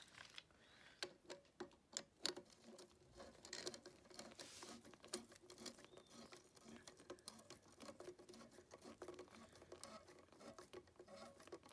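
Faint, irregular small metallic clicks and scraping of a socket wrench turning the clutch spring bolts on a Honda CR125's clutch pressure plate, as they are snugged down.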